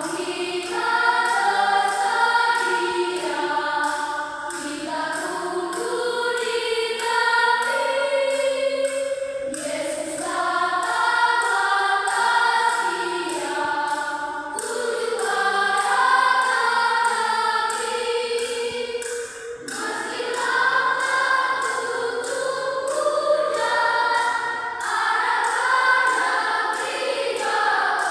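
Church choir singing a hymn in several voice parts in rehearsal, with brief breaks between phrases.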